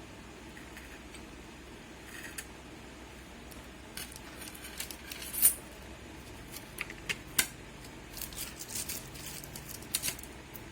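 Scattered small clicks and taps of hand tools and small parts being handled during an electronics repair. They come sparsely at first and more often from about four seconds in, with one sharper click about five and a half seconds in.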